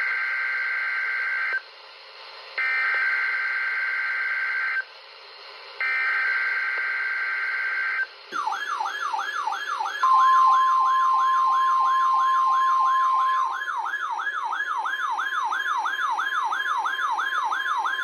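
NOAA Weather Radio test alert played through a Midland weather radio's small speaker. First come three SAME header bursts, buzzy two-pitch data screeches each about two seconds long with short gaps between them. About eight seconds in, a fast siren-like warble starts, rising in pitch about three times a second; this is the receiver's alert. About two seconds later the steady 1050 Hz warning alarm tone joins it and runs for about nine seconds.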